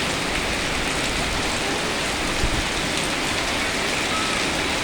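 Rain falling steadily in a dense, even hiss, with a brief low thump about halfway through.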